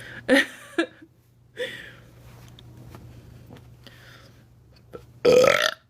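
A woman breathing close to the microphone: a short sharp breath about a third of a second in, then a louder breath lasting about half a second near the end.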